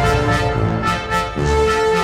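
Background music: an instrumental track with sustained notes, brass-like instruments coming in near the end.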